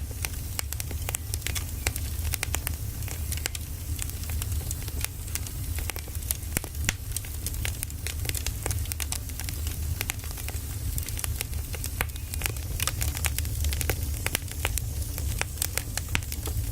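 Firewood burning: a wood fire crackling with frequent irregular sharp pops over a steady low rumble of the flames.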